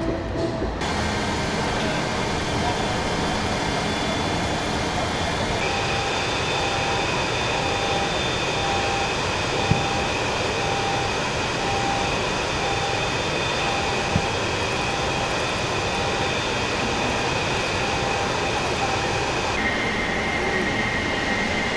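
Steady machinery drone with high whining tones, from a berthed warship and the dockside. A faint short beep repeats about once a second through the middle, and there are two small knocks.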